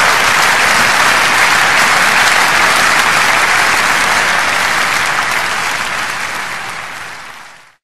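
Applause from a large crowd, dense and steady, then fading out over the last second or two.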